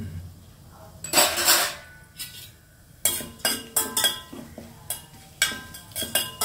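Metal spoon clinking and scraping against a stainless steel pot while stirring fennel seeds and bay leaves in hot oil, a quick run of sharp clinks from about three seconds in. About a second in, a brief loud rush of noise.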